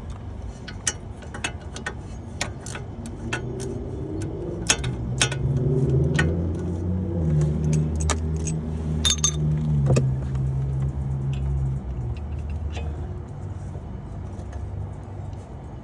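Metal tools and parts clinking and tapping, many sharp separate clicks, during hand work on a car's wheel hub. A low steady hum builds up about four seconds in and stops about twelve seconds in.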